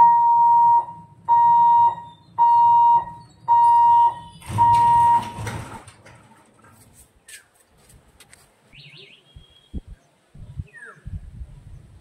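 Railway level-crossing warning buzzer beeping five times, about once a second, a steady high tone, as the boom barrier comes down. A short rush of noise comes with the fifth beep.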